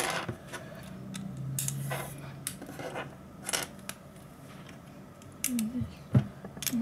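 Plastic LEGO bricks clicking as pieces are picked out of a loose pile and pressed together by hand, a series of separate sharp clicks.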